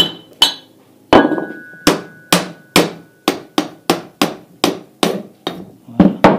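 A mallet striking the end of a multistage well pump's shaft about fifteen times, two to three blows a second and a little quicker toward the end, driving the shaft and its rusted bearings out of the housing. A faint metallic ring follows some of the blows.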